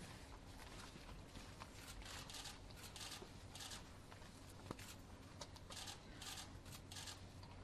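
Near silence: the hush of a large hall, with faint scattered rustles and one soft click a little past halfway.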